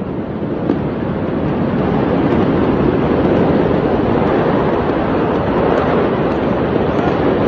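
Loud, steady rushing noise that swells over the first two seconds and then holds.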